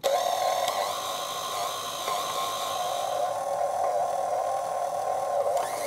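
KitchenAid stand mixer running steadily, its motor and gearing giving an even hum as it kneads a stiff currant bun dough.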